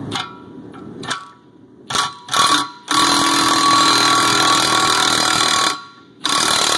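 A power tool drives the forcing screw of a Posi-Lock puller to pull the cam gear off a 7.3 Powerstroke camshaft. It gives a few short bursts, then runs hard for about three seconds, then gives one more short burst near the end.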